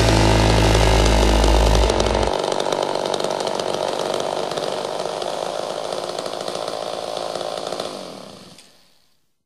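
A chainsaw running, heard at first under a held low rock-band chord that stops about two seconds in, then alone. It fades out near the end.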